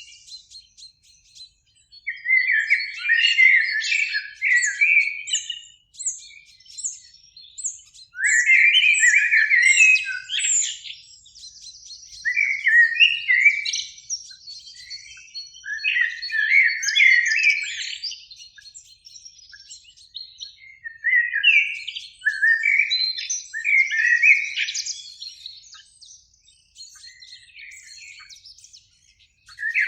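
Common blackbird singing: a run of fluting, warbled phrases a few seconds apart, each trailing off into a higher, squeaky twitter.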